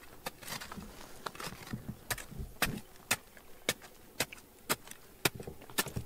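Repeated sharp strikes of a hand tool against stone and soil, settling into about two strikes a second.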